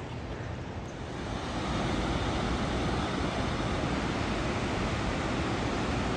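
Rushing water of the Missouri River pouring over the falls at Ryan Dam: a steady rush that grows louder about a second and a half in.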